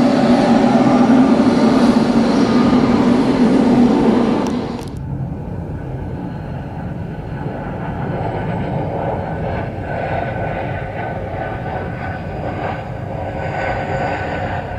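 Jet airliner engine noise, loud with a strong low hum at first, then dropping abruptly about five seconds in to a quieter, steadier engine sound.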